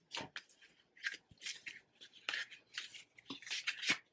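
Cardboard packaging of the iPhone 12 mini box being pulled apart by hand: a run of irregular short rips and scrapes, the loudest near the end.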